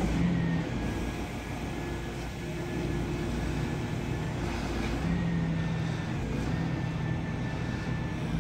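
Volvo EW205D wheeled excavator with a material-handler front running, its diesel engine and hydraulics giving a steady drone with a thin high whine. The whine drops in pitch about a second in and rises again twice in the second half, as the boom and grapple are worked and the load on the hydraulics changes.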